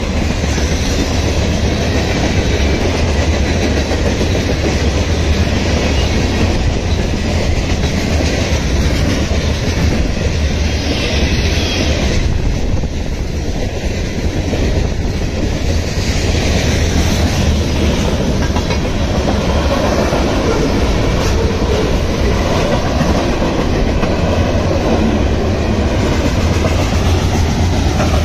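Manifest freight train rolling past close by: a loud, steady rumble and rattle of steel wheels on the rails as covered hoppers and tank cars go by, with occasional clacks.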